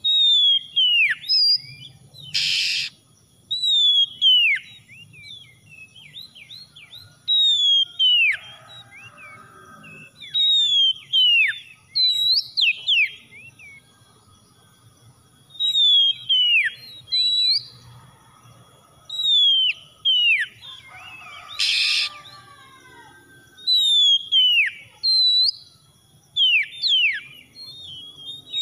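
Oriental magpie-robin singing: loud, clear whistled phrases, each note sliding down in pitch, given in bursts every few seconds. Two short harsh noisy notes break in, about two seconds in and again about twenty seconds later.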